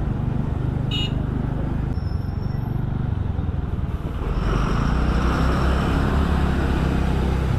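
Motor scooter engine running while the scooter rides through town traffic and picks up speed, with wind rushing over the microphone more strongly from about four seconds in. A short horn toot sounds about a second in.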